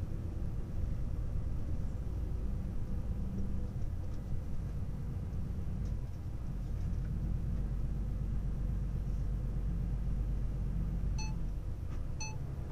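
Car driving, heard from inside the cabin: a steady low engine and road rumble, with two short high beeps about a second apart near the end.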